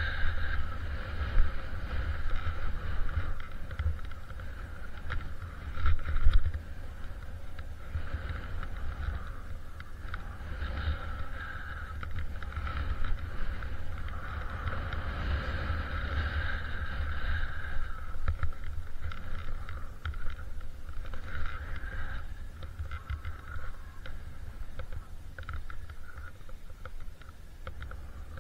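Ogso Spencer 110 mm freeride skis hissing through powder snow, the swish swelling and fading with each turn, over heavy wind rumble on the camera microphone.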